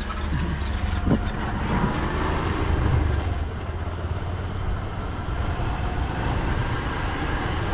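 Motorcycle engine running steadily while riding along a dirt road, with rushing wind and road noise.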